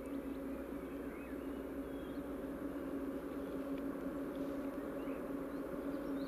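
Distant drone of a TEP70 diesel locomotive's engine, a steady hum that grows slowly louder as the train approaches, with small birds chirping now and then.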